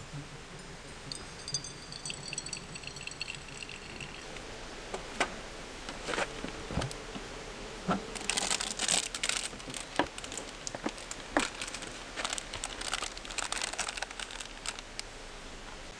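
Crinkling and rustling of something being handled, with scattered sharp clicks and knocks, dense crackling in the second half. A thin high whine sounds for about three seconds near the start.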